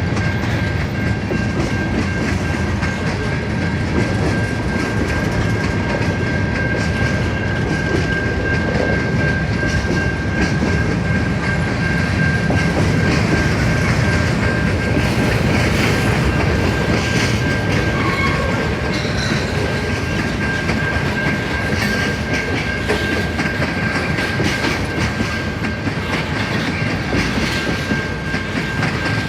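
CN train rolling past, its wheels clattering over the rails in a steady din, with a thin, steady high tone running under it throughout.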